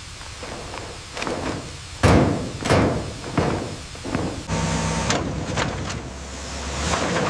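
A series of heavy impacts, each trailing off, the loudest about two seconds in. About four and a half seconds in, a steady low mechanical rumble takes over.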